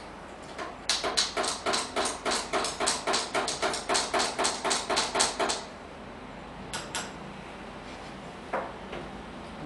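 Long bar spoon stirring ice in a tall glass, clinking rapidly and evenly against the glass about five times a second for some four and a half seconds, then stopping. A couple of light clicks and a single knock follow.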